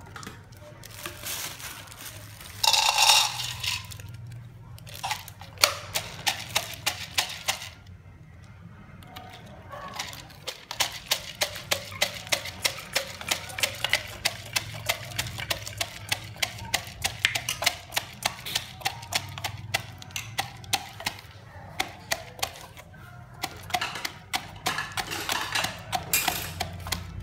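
Food being prepared by hand: a steady run of sharp knocks from a kitchen utensil, about two a second, over roughly ten seconds in the middle, with short bursts of noisier handling near the start and near the end.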